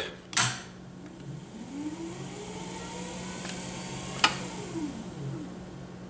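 Power wheelchair drive motor, throttled from an RC transmitter, whining up in pitch as it speeds up and back down as it slows, over a steady electrical hum. A sharp click comes just after the start and another about four seconds in.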